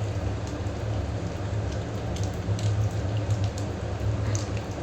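Oil or butter sizzling in a cooking pot as popcorn kernels are added, a steady rain-like hiss with scattered faint ticks over a steady low hum.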